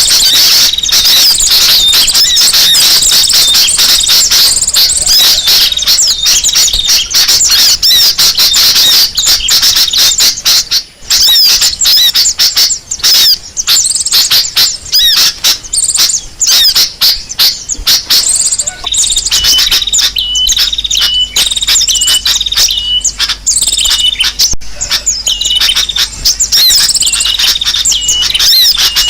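Bird-lure recording of a dense chorus of many small birds chattering and chirping loudly, with no pause. About two-thirds of the way in, a short repeated call begins about once a second over the chatter.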